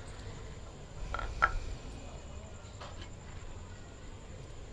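Keema masala cooking in a clay pot: a low steady rumble with a few short knocks, the loudest about a second and a half in and another about a second later.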